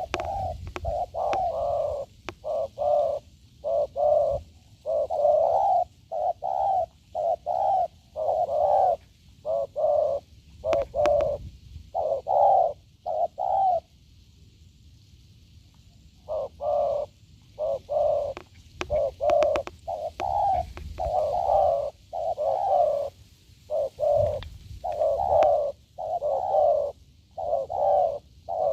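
A wild-caught spotted dove cooing over and over in quick, back-to-back phrases, broken by a single pause of about two and a half seconds midway.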